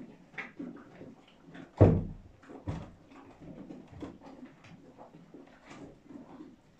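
A heavy thump about two seconds in, among scattered lighter knocks and rustles.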